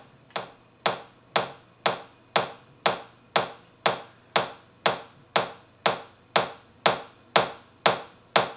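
Electronic kick drum sample from the Lucid Mission Maschine expansion playing a steady four-on-the-floor pattern, about two hits a second. A high, clicky top kick with little bass weight.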